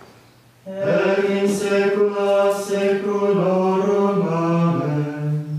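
Male voices chanting Latin plainchant in a single melodic line. It begins about a second in, holds on long notes and steps down in pitch near the end.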